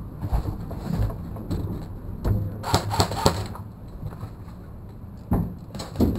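Irregular knocks and thumps over a low rumble, a few seconds apart.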